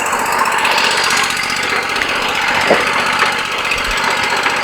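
Wood-Mizer LT40 sawmill running while its hydraulics handle a log, a loud steady mechanical noise. A single knock comes a little past halfway.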